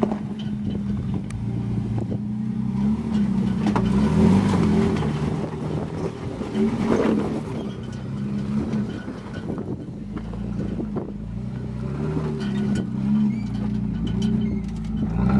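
Toyota Tacoma pickup's engine running at low revs as it crawls over rocks, its pitch rising and falling with the throttle, with a few short clicks and crunches along the way.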